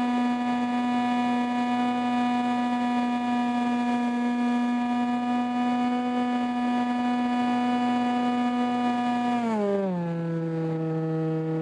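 RC airplane's motor and propeller heard from the onboard camera, a steady high hum. About nine and a half seconds in the pitch slides down and settles lower as the motor slows.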